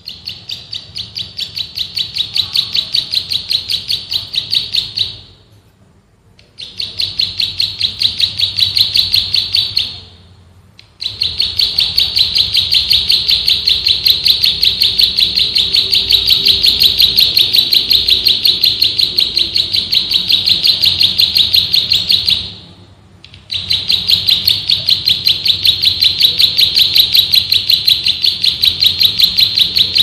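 Plain prinia (prenjak sawah) singing fast runs of high chirping notes in long bouts. The runs break off briefly three times, and each bout builds up in loudness as it starts.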